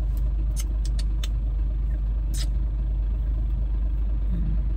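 Steady road and engine rumble of a moving car heard from inside the cabin, with a few short clicks in the first half.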